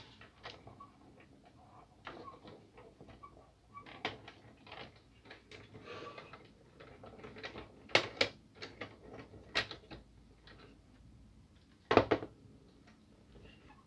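Plastic clicks and knocks from handling a Kyocera DK-150 drum unit: parts snapping and the housing being turned over, with a louder double knock near the end.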